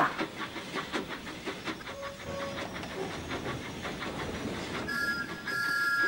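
Steam locomotive sound effect for a moving engine: quick rhythmic chuffing with a hiss, then a two-note steam whistle blowing near the end.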